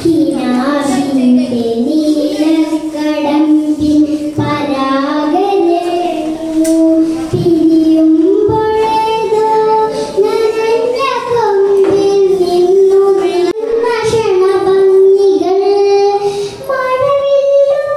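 A young girl singing solo into a microphone, a slow melody with long held notes.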